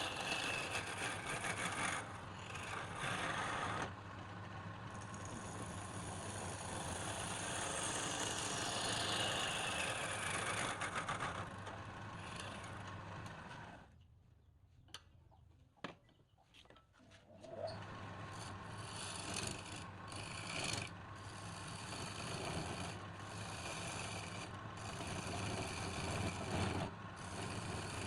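Wood lathe running while a turning tool scrapes and cuts the spinning workpiece, a steady rasping hiss over the motor hum. The cutting stops for a couple of seconds about halfway through, then starts again.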